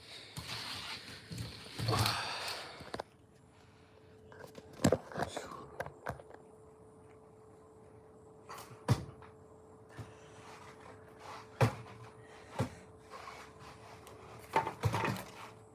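Handling noise as a phone camera is picked up and repositioned: a rustle for the first few seconds, then a faint steady hum with scattered light knocks and taps, about eight in all.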